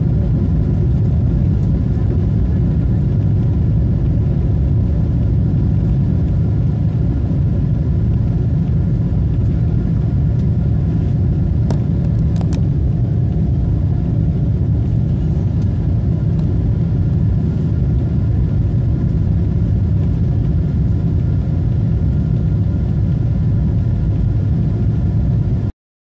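Steady cabin noise inside a Boeing 777 airliner in flight: the even, low rumble of the engines and airflow, with a faint steady hum above it. It breaks off for a moment near the end.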